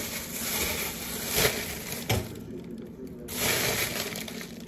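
Steady hiss of cooking on the stovetop, dropping away briefly a little over two seconds in, with a couple of light knocks.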